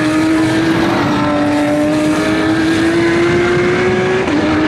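Porsche 911 GT3 Cup (991.2) 4.0-litre flat-six racing engine accelerating hard as the car pulls away. Its note climbs steadily and dips with a quick upshift about a second in and another near the end.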